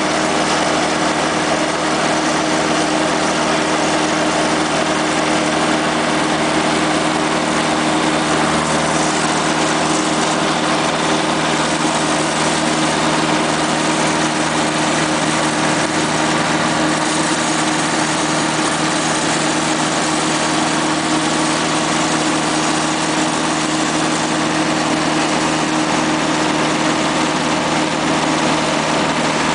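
The engine of a mole-plough rig running steadily under load as it pulls pipe through the ground, with an even engine hum and no change in pitch.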